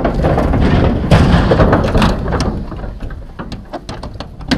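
A pronghorn is pushed into an aluminium livestock trailer, with loud scuffling and thumping against the trailer. From about three seconds in come a run of sharp metallic clicks and knocks as the trailer door is swung shut and latched, the loudest knock near the end.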